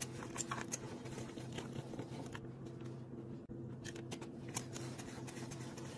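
Hand-cranked rotary drum cheese grater shredding a block of cheese: faint scraping and crunching with scattered small clicks as the drum turns.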